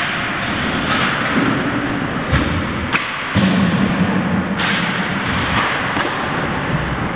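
Ice hockey practice on a rink: a steady noise of skates and play on the ice, broken by a couple of sharp knocks of pucks and sticks, a little past two seconds and about three seconds in.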